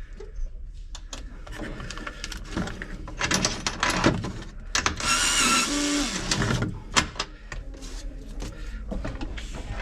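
Metal clanks, knocks and rattles of vending machine parts being handled, with a squealing scrape lasting about a second and a half, about five seconds in.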